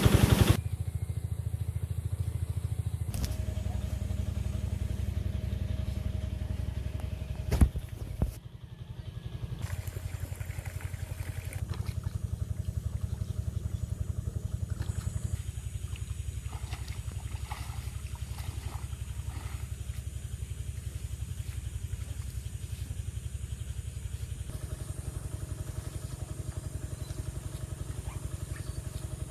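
An engine running steadily, with one sharp knock about a third of the way through.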